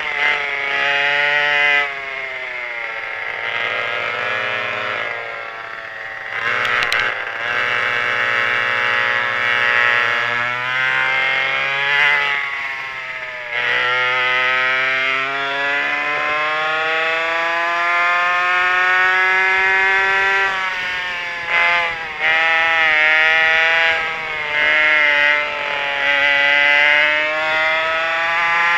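Twin McCulloch 5.3 ci two-stroke chainsaw engines on a racing kart at full race pace, the pitch climbing steadily for several seconds at a time and then dropping off sharply for the corners, several times over.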